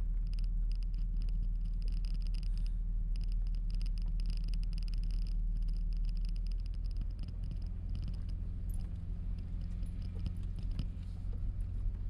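Vehicle engine running with a steady low rumble while driving slowly over a dirt road, heard from inside the cab. A faint high-pitched tone comes and goes over it during the first half.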